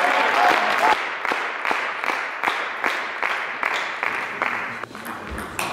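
A few people clapping, about three claps a second, growing fainter.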